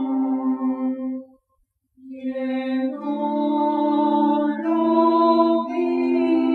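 Slow background music of long held notes changing step by step, with a brief silence about a second and a half in.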